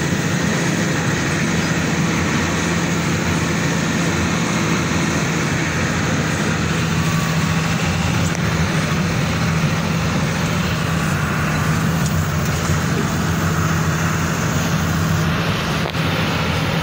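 Steady engine and tyre noise heard from inside a moving vehicle on an unpaved dirt road, with a constant low drone.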